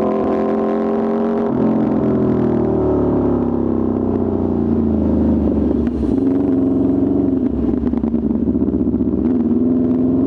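Aprilia RSV4 RR's V4 engine running at a steady, fairly high speed through an Austin Racing exhaust. Its pitch sags slowly through the middle and climbs again near the end.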